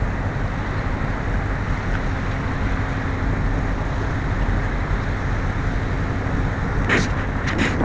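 Steady low rumble and rushing water from a large container ship's engines and churning wash, with a faint steady hum under it. A few short sharp knocks come near the end.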